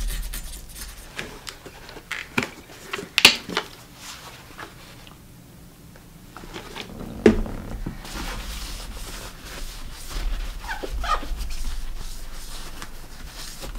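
Paper towel rubbed over chrome steel drop handlebars to clean off old grip residue, with scattered clicks and taps from handling the bars and brake lever, and a few short squeaks about eleven seconds in.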